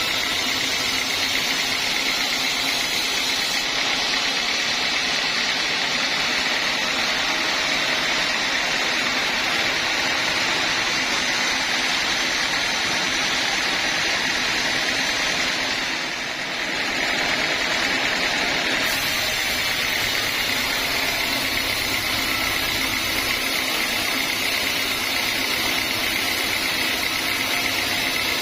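Band sawmill machinery running steadily, a loud even mechanical noise with a high, hissing edge. It briefly softens about two-thirds of the way through.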